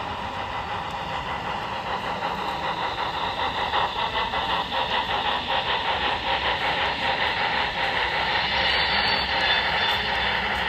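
A model train running on a layout, with a rapid, even clicking that grows louder through the first half.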